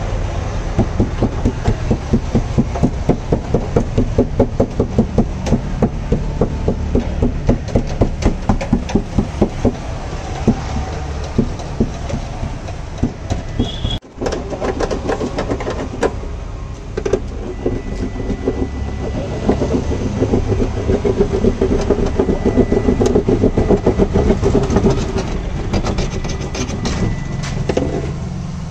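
Fast, rhythmic rubbing on a jeep door's steel inner panel, about four strokes a second, as damping sheet is pressed and smoothed onto the metal. Later the rubbing turns irregular, with knocks against the panel and a faint steady high whine.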